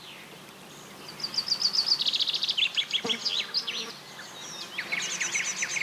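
Small songbirds singing: quick runs of high chirps and short falling trills, thickest from about two seconds in and again near the end.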